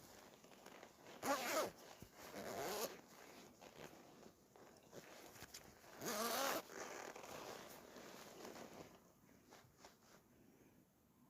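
A zipper pulled in three short strokes, the last about six seconds in, with soft rustling between.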